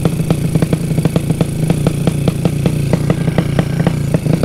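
Motorcycle with an exhaust modified to sound like a helicopter, running with a loud, even chopping beat of about six pulses a second.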